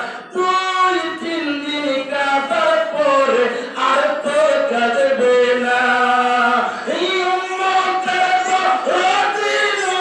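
A man singing a Bengali devotional song about the Prophet into a microphone over a PA, in long held notes that glide up and down.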